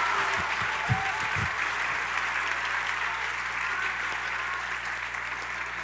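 A large seated audience applauding, the clapping gradually dying away.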